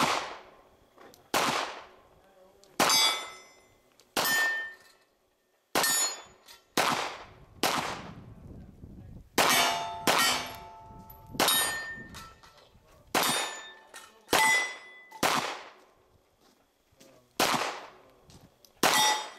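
Handgun shots fired at steel targets, about fifteen in a steady string roughly one to one and a half seconds apart, each followed by the ring of a struck steel plate.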